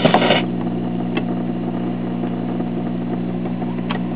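1947 Admiral portable phonograph's record changer cycling its tone arm back to the start of the record. There is a brief mechanical clatter at the start and a couple of light clicks, over a steady mains hum from the three-tube amplifier, a ground fault still to be fixed.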